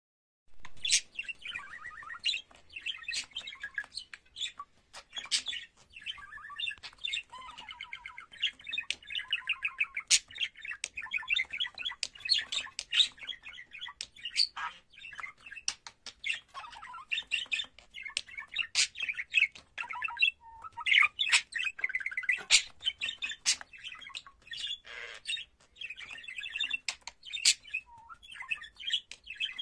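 Budgerigar warbling: a long, fast run of chirps, chatter and sharp clicks, broken by a few short pauses.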